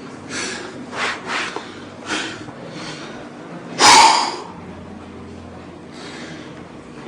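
A person's short, forceful breaths, a few quick ones, then one much louder blast of breath about four seconds in.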